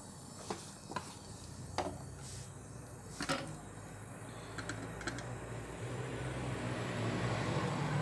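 Gas brazing torch flame hissing as a refrigerator filter drier is brazed onto copper tubing, the hiss growing louder over the last three seconds. A few light metal clicks from the pliers and tubing come in the first five seconds.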